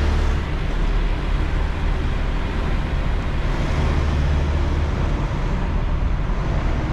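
Semi truck's diesel engine running as the truck creeps through a slow turn, heard from inside the cab: a steady low drone that grows louder for a moment about four seconds in.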